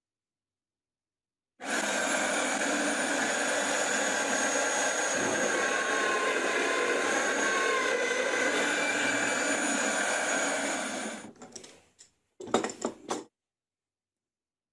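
Electric router running at full speed and cutting into a wooden block: a steady, high-pitched motor whine that winds down about ten seconds in. A few short knocks follow.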